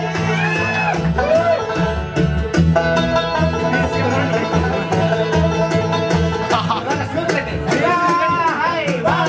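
A bluegrass band playing acoustic instruments live: five-string banjo, fiddle, mandolin, acoustic guitar and resonator guitar, in one continuous up-tempo piece.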